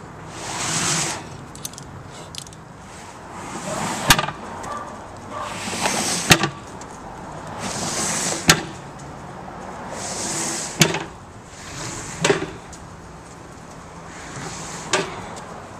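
Rubber car tire dragged over asphalt in surges, scraping once about every two seconds as it is hauled forward, with a sharp metallic click near many of the pulls.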